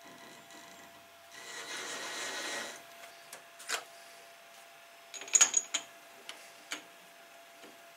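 Hand work at a metal lathe with the spindle stopped: a soft scraping rustle for about a second, then scattered sharp clicks, the loudest a quick cluster of clinks about five seconds in.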